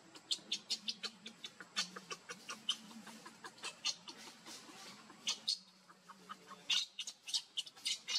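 Baby macaque crying in short, high squeaks, several a second, with a brief lull a little past the middle.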